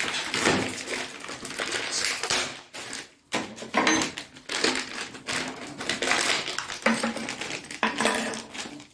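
A plastic packet of toilet-seat fixing bolts and fittings being opened and handled: crinkling plastic with small metal parts clinking, in irregular bursts.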